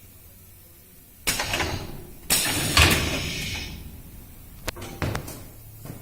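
Two-head PVC window welding machine working: two bursts of air hiss from its pneumatic cylinders, the first about a second in and a longer, louder one just after, then a few sharp clicks of the mechanism.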